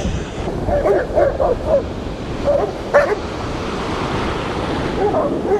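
A dog barking and yipping in short bursts over steady breaking surf, the sharpest bark about three seconds in.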